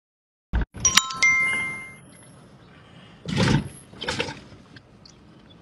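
The stream's audio drops out completely for about half a second, a sign of the live stream lagging. It comes back with a couple of clicks and a short, bright electronic chime of several ringing tones, like a live-stream app's alert sound. Two brief noises follow about a second apart.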